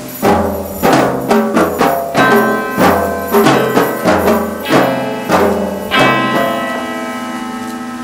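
Instrumental music: a melody of struck, ringing notes, about two a second, over deep bass notes, ending about six seconds in on a long chord that slowly fades.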